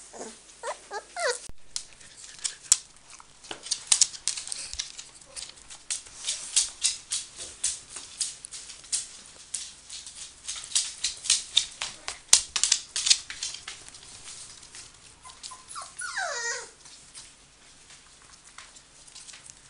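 Samoyed puppies at play: an uneven run of quick sharp clicks and scratches from paws and claws scrabbling on the floor and rug. A puppy gives short high whines that fall in pitch at the start and again near the end.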